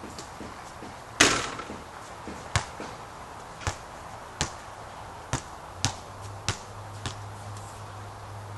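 A basketball strikes the hoop about a second in with a loud metallic clang that rings briefly, then is bounced on the court in about seven single knocks, half a second to a second apart. A low steady hum starts about six seconds in.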